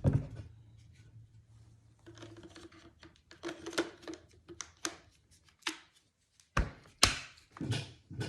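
Handling noises from unboxing a cordless cable stapler: scattered clicks and light knocks of plastic and packaging, then two sharp knocks close together near the end.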